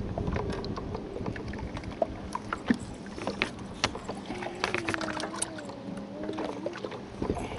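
Spinning reel cranked as a small crappie is reeled to the boat and splashes at the surface, with many short clicks and knocks from the reel and tackle. A wavering hum runs through the second half.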